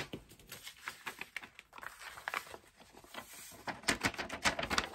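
Handling noises of craft tools and small pots on a worktable: a sharp click at the start, then scattered taps, clicks and light rustling that grow busier near the end.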